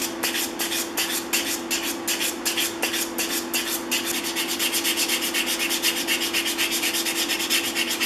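150-grit sandpaper on a rubber sanding block rubbed along a hardwood plane tote in quick back-and-forth strokes, which speed up about halfway through. A steady low hum runs underneath.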